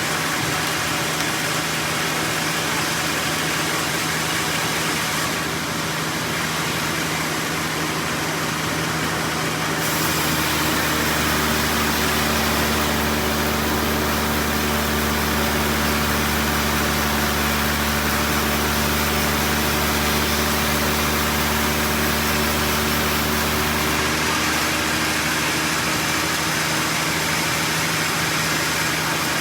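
Sawmill machinery running steadily. About ten seconds in its sound grows a little louder, with a deeper hum and a steady whine that last about fourteen seconds before easing back.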